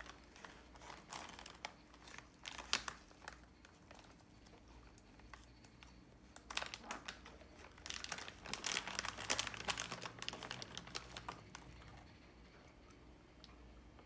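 Clear plastic dog-treat bag crinkling as it is handled and a dog pushes its nose into it: a few short bursts early, then a longer, louder run of crinkling past the middle, going quiet near the end.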